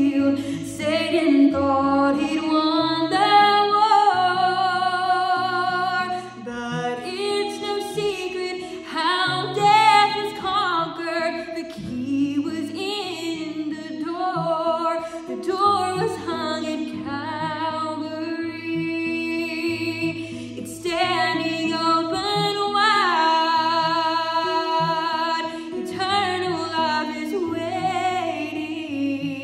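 A woman singing a slow gospel song with vibrato over instrumental accompaniment with a moving bass line.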